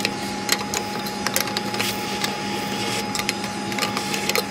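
Henry vacuum cleaner running with a steady hum, its hose nozzle sucking soot and ash out of a miniature steam locomotive's smoke box, with frequent clicks and rattles of grit going up the hose.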